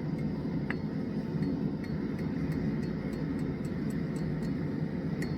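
A forge running with a steady, even roar. There is one light metallic clink just under a second in, and faint small ticks run on in the background.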